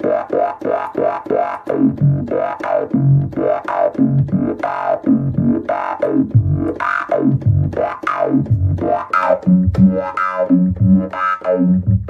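Sylenth1 software synth playing a fast run of low, buzzy pulse-wave notes, about three a second, through a bandpass filter that an LFO sweeps up and down. This gives the sound a trippy, vowel-like psytrance lead quality, with a click on each attack from the pitch envelope.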